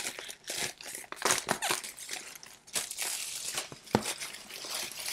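Clear plastic wrap crinkling and rustling as it is pulled off and pushed aside from a cardboard laptop box, with a sharp thump about four seconds in.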